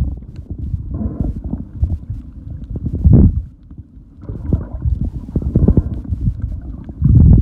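Muffled underwater rumbling and sloshing of water against a camera held under the surface, with louder swells about three seconds in and again near the end.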